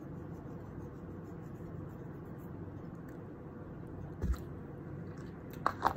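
Quiet room tone with a steady low hum. About four seconds in there is a brief wet mouth smack from licking seasoning off a fingertip, and near the end there are two more small clicks.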